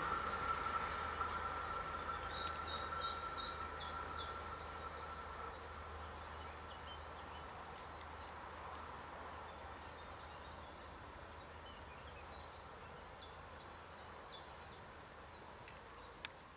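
Meridian electric multiple-unit train running away into the distance, its rolling noise and a steady high whine fading out. A small bird calls in two runs of quick, short chirps, one early and one near the end.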